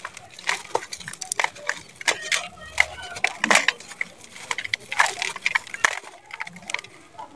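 Dry sand-cement chunks crumbling in bare hands: irregular gritty crunches and crackles as lumps snap apart and the grit falls into a bowl.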